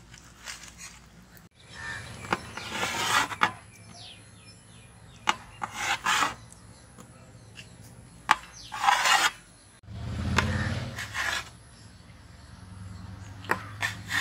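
A cleaver slicing cooked goat liver on a steel plate, in several bursts of cutting strokes, some ending in a sharp tap of the blade on the metal.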